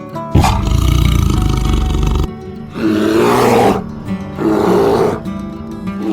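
A large animal calling loudly in repeated bursts of about a second each, over background music.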